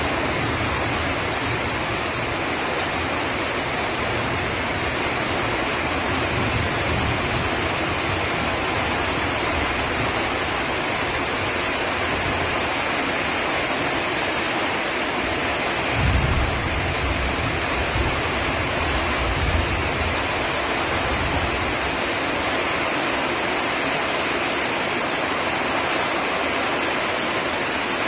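Heavy rain pouring down steadily, a dense even hiss, with a couple of brief low gusts of wind buffeting the microphone a little past halfway.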